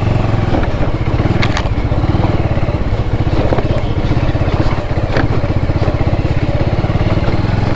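Motorcycle engine running at low revs with a fast, even firing pulse, and a few sharp knocks and rattles as the bike rides over a potholed dirt track.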